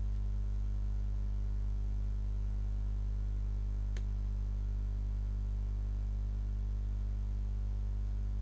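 Steady low hum with one faint click about four seconds in.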